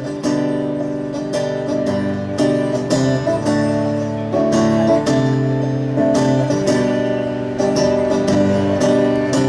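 Acoustic guitar strummed in a steady rhythm, chords changing every second or so: an instrumental passage between sung verses.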